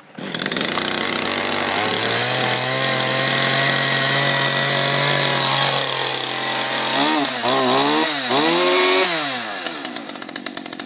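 Two-stroke gas chainsaw starting on half choke, catching at once and running at a steady fast idle. It is revved up and down a few times about seven seconds in, then drops to a lower, ticking idle near the end.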